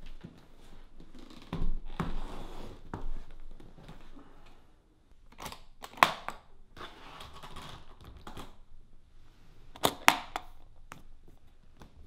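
A hard-shell guitar case is set down on a wooden table with thumps and rustling, then its metal latches are flicked open, sharp clicks near the middle and again near the end.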